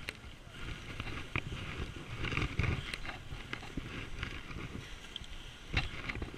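Snow scraping and crunching under a seated body sliding down a snow chute, in uneven, grating bursts with a few sharp clicks.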